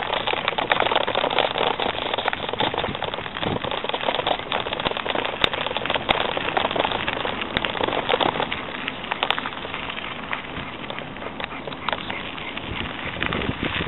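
Bicycle tyres and the paws of three running Shetland sheepdogs on a gritty, leaf-strewn trail: a steady crunching rattle with many small clicks.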